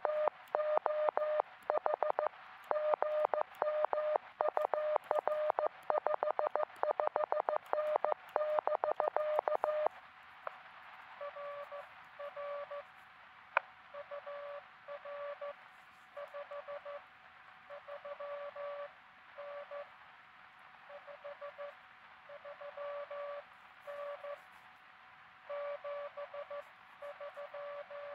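Morse code from a truSDX QRP transceiver: about ten seconds of fast, loud keyed sidetone at one steady pitch, then a fainter Morse signal at a slightly lower pitch with receiver hiss behind it, typical of another station answering. A single sharp click comes midway.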